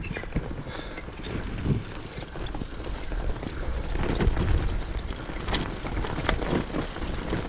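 Cinelli Bootleg Hobo touring bike's tyres rolling over a rough gravel track, with a steady crunch and many small gravel ticks and rattles, over a low rumble of wind on the microphone.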